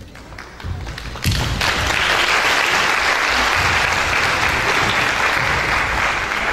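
Audience applause, starting about a second in and continuing steadily.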